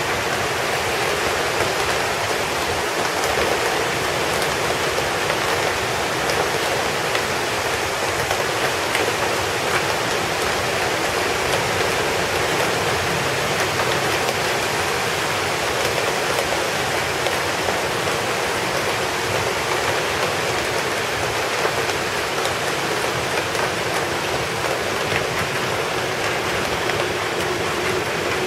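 Heavy rain falling steadily, a constant hiss of water with scattered drop ticks.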